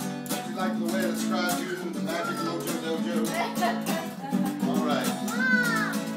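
Two acoustic guitars strummed together, playing a song, with voices singing and calling over them.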